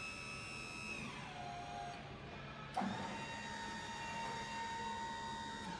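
DC-powered hydraulic power unit of a roll manipulator whining while its control switch is worked. The pitch drops about a second in, there is a sharp click just before three seconds, and then a steady lower-pitched whine cuts off suddenly near the end.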